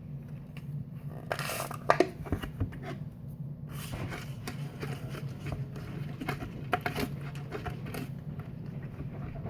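Someone eating Greek yogurt with crunchy chocolate cookie pieces and praline pecans: scattered crunches and small clicks of chewing and the spoon, over a steady low hum.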